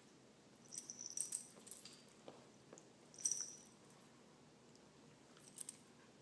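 Metal ID tags on a pet's collar jingling in short faint bursts: about a second in, again at about three seconds, and once more near the end.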